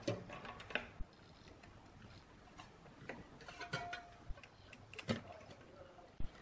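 Small, irregular clicks and knocks of parts being handled on the metal chassis of a moving-head beam light: a power supply board, plastic connectors and wiring being fitted.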